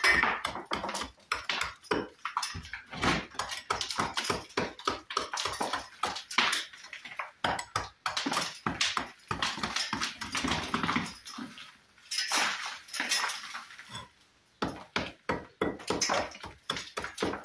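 Small brick hammer striking and chipping brick faces: quick, irregular knocks with short pauses. The damaged bricks are being cut back to a recess to take cut brick slips.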